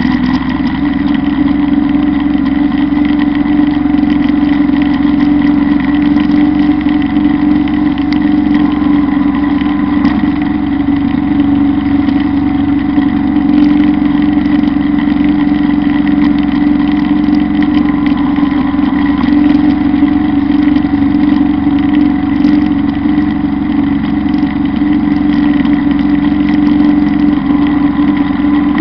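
Kubota Bulltra B1-17 compact tractor's diesel engine running steadily under load while it drives a Zanon drum mower cutting grass.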